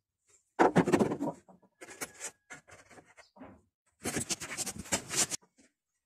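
Plastic switch head panel of a twin tub washing machine being prised and lifted open: scraping and knocking of plastic against the cabinet. There is a loud burst about half a second in and a dense rattle of clicks about four seconds in.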